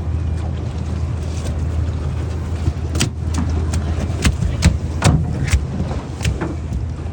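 Boat motor running steadily with a low hum. From about three seconds in, a series of sharp knocks and slaps, around six or seven, sounds over it.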